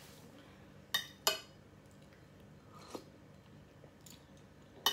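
Metal spoon clinking against a glass dish of soup: two sharp, ringing clinks close together about a second in, a softer one near the middle and another at the end.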